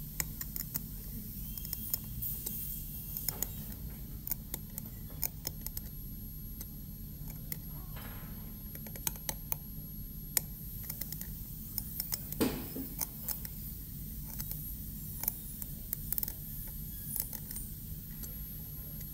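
Steel enamel hatchet scraping and clicking on a plastic typodont molar, shaving the walls of the cavity preparation by hand. The result is irregular small clicks and short scrapes over a steady low hum.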